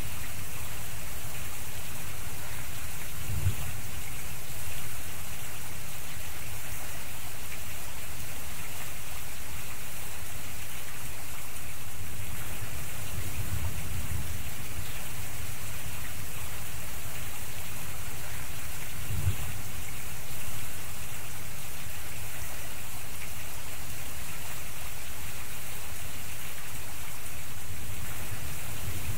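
Steady rain falling, with a few brief low rumbles.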